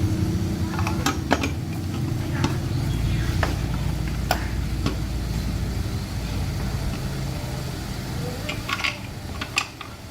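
A motor running with a steady low hum that fades away near the end, with scattered sharp metal clinks and taps over it.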